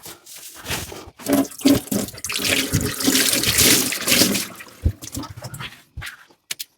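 Water running from a kitchen tap into the sink for a few seconds, starting about a second in and stopping before the end, with dishes knocking and clinking around it.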